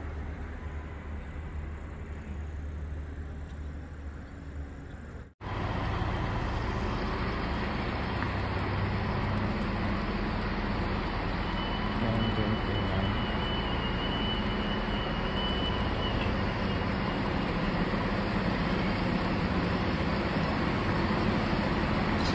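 Steady street-traffic rumble, then after an abrupt cut the louder steady rumble and hum of a station train shed where Siemens Desiro diesel railcars stand at the platform. A faint high whine sounds for a few seconds midway.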